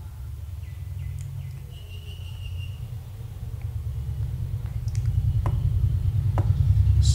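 A low, steady background rumble that grows louder toward the end. A brief high chirp comes about two seconds in, and a few sharp clicks come near the end.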